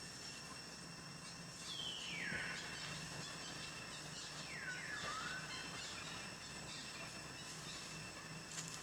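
Steady outdoor ambience with a constant high whine and a low hum. Two falling animal calls sound over it, the first about two seconds in sweeping from high to mid pitch, the second shorter with a small upturn at its end.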